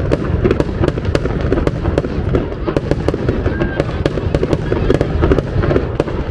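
Aerial fireworks going off in quick succession: many sharp cracks and pops, several a second, over a continuous low rumble of bursting shells.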